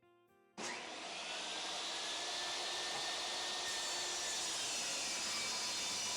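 Electric shop machine running steadily, a dense rushing motor noise that starts abruptly about half a second in.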